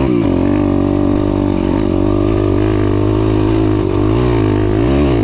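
Daytona 190 4-V pit bike's 190 cc four-valve single-cylinder engine running under steady throttle while riding. It briefly dips at the start, then dips and rises in pitch a few times near the end as the throttle is eased and opened.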